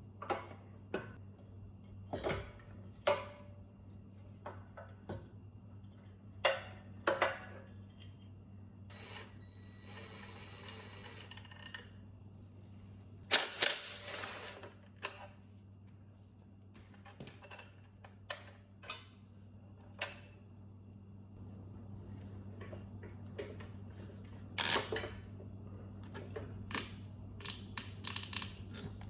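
Scattered clicks, knocks and clanks of hand tools and metal parts being handled during generator disassembly, the loudest clatter about halfway through and again near the end, over a steady low hum.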